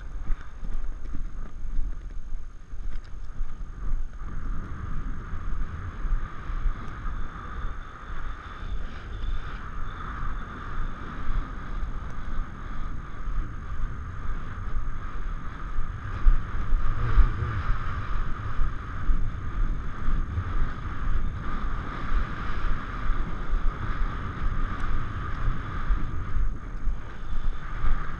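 Arabian stallion galloping over grass, heard from the saddle: a regular rhythm of hoofbeats mixed with wind buffeting the microphone.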